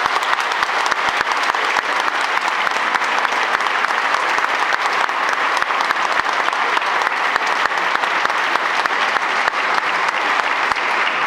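Audience applause: many hands clapping together at a steady level.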